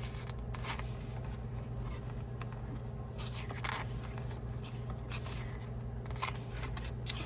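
Pages of an album photo book being turned and handled: several soft, brief paper rustles, with a slightly sharper one near the end, over a steady low electrical hum.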